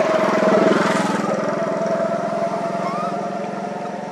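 A motor engine running steadily with an even pulsing beat. It peaks about half a second in, then slowly fades, as if moving away.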